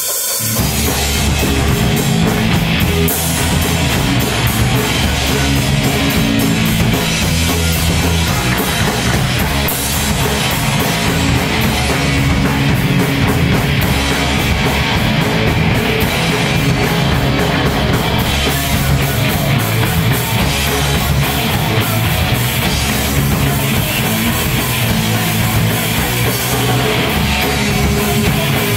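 Live rock band playing: electric guitars, bass and a drum kit, loud and continuous, heard through the venue's PA.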